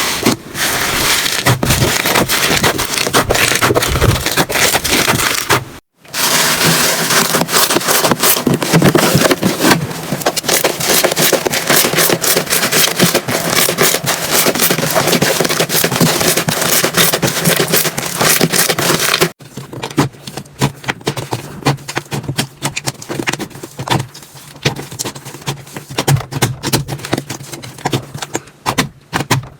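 Slime squeezed and pressed by hand, a dense crackling of small pops and clicks. It cuts off abruptly about 6 s in and again about 19 s in, and the last part is quieter, with sparser clicks.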